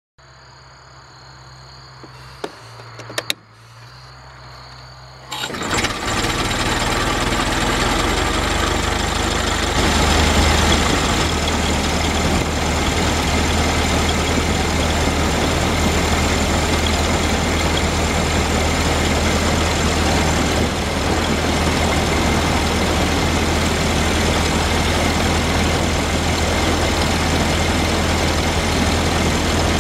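1914 Ford Model T's four-cylinder engine. A faint hum with a couple of clicks comes first, then about five seconds in the sound comes up suddenly to a loud, steady run with road and wind noise, heard from the driver's seat while the truck drives along.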